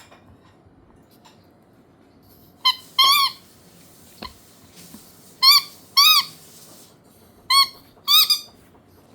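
Chihuahua puppy giving short, high-pitched calls in three pairs, each call arching up and then down in pitch.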